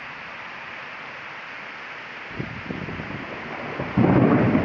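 Heavy tropical rain pouring steadily as a constant hiss. A low rumble of thunder comes in about halfway through and breaks into a loud thunderclap near the end.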